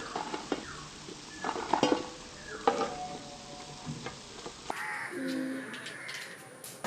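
Potato bites sizzling as they fry in hot oil in a pan, with a metal spoon knocking and scraping against the pan as the pieces go in and are stirred; the sharpest clinks come at about two and three seconds.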